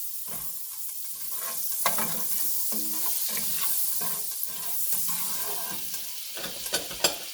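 Butter sizzling as it melts in a hot pot, with a few sharp clicks scattered through it.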